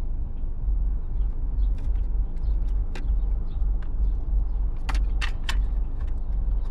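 Sharp clicks and taps of plastic wiring plugs being handled and pushed onto an ignition control module in a GM HEI distributor: one click about three seconds in and three close together about five seconds in, over a steady low rumble.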